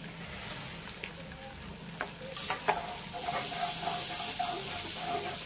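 Freshly added onion, capsicum and green chilli pieces sizzling in hot oil in a wok on a high flame while a metal slotted spoon stirs them. The sizzle gets stronger about halfway, with a sharp click about two and a half seconds in.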